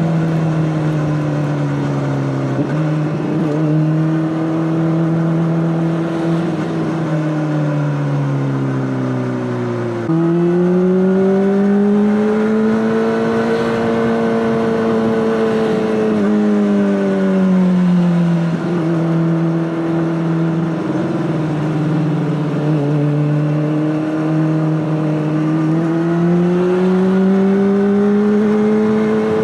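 Honda CBR600RR inline-four engine running through an Akrapovic exhaust under way. Its pitch rises and falls with the throttle and changes abruptly several times as gears are shifted, with a sharp jump upward about a third of the way in.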